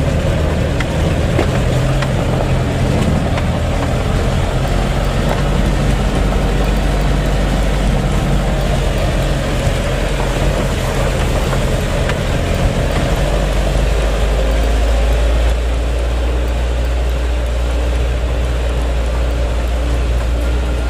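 Isuzu Elf microbus's diesel engine running under way, heard from inside the cabin with road noise; the low engine drone grows stronger about fifteen seconds in.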